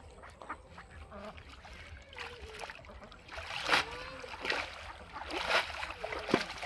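Water splashing and sloshing as a wet cast net is pulled up and dragged through shallow, weedy water, with several sharper splashes in the second half. Ducks quack briefly a few times.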